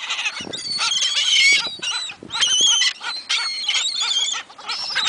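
A flock of seagulls calling over one another with many high, harsh cries, one after another, as they crowd in to be fed.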